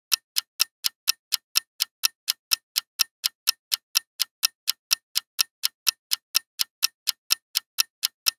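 Clock-tick sound effect: a rapid, even run of sharp ticks, about four a second, counting down the seconds on a quiz countdown timer.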